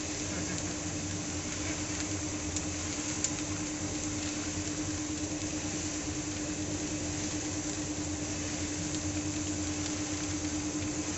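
Wheat-roasting machine running steadily, a constant hum with one steady tone over an even rushing noise as roasted wheat grains pour down its mesh chute into a basket.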